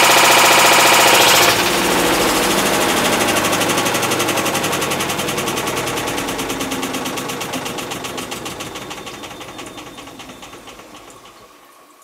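Hitachi BeatWash top-loading washing machine making a loud grinding rattle from its failed clutch, a fault the owner puts down to overloading. About a second and a half in, the drive cuts off, and the noise turns into rapid clicking that slows and fades as the tub coasts to a stop.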